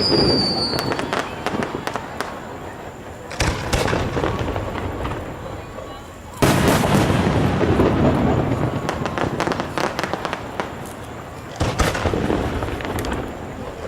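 Aerial fireworks shells bursting: three sharp booms about three and a half, six and a half and eleven and a half seconds in, each followed by a long crackle that dies away.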